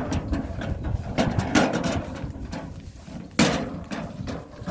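Irregular scraping strokes and knocks of spades and wheelbarrows being worked with sand.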